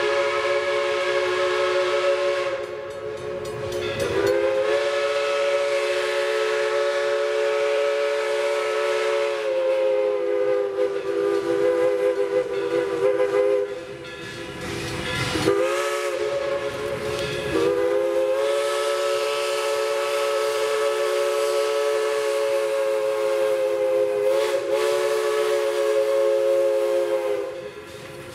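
Steam locomotive's chime whistle sounding the grade-crossing signal for CNJ 0-6-0 No. 113: two long blasts, a short one, then a final long blast. Each blast is a steady chord of several tones.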